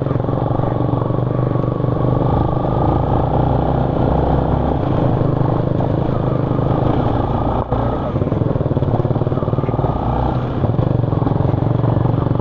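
Yamaha motorcycle engine running steadily while riding along a dirt trail, heard close up from the rider's seat.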